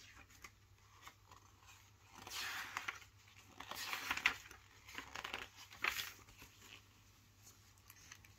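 Pages of a thin paperback picture book rustling as they are handled and turned, in several short rustles.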